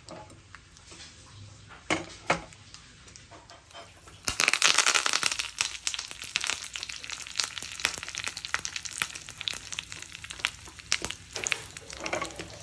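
Hot oil in a small tempering pan bursting into a loud sizzle about four seconds in, as curry leaves go in over the mustard seeds and dried red chillies. It then settles into steady crackling and spitting.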